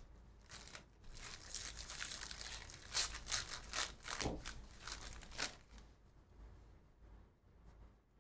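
Foil wrapper of a Panini Donruss basketball card pack being torn open and crinkled, a run of crackles that stops about five and a half seconds in.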